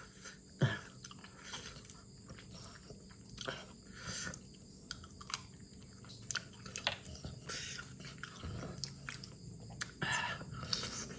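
A person chewing mixed seafood salad close to the microphone, with scattered small clicks and a few short sucking slurps.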